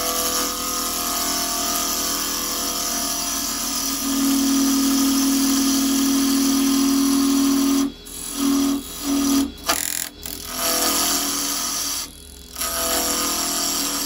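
A carbide turning chisel cutting a spinning square beech blank on a wood lathe, roughing it round: a loud steady cutting noise with a strong hum. The cut breaks off briefly several times in the second half.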